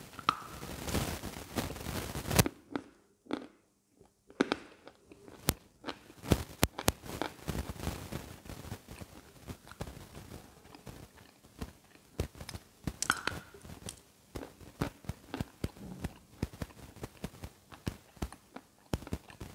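A lump of white eating chalk bitten and chewed close to the microphone. A dense crunch comes at the first bite, then irregular crisp crunches and crackles as it is chewed.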